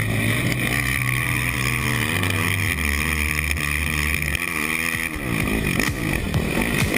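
KTM racing quad's engine running, its revs rising and falling unevenly, over a steady low hum. A few sharp knocks come near the end.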